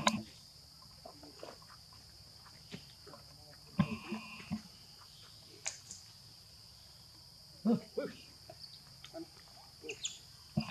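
Steady high-pitched drone of insects such as crickets, with a few short, sharp sounds about four and eight seconds in and again near the end.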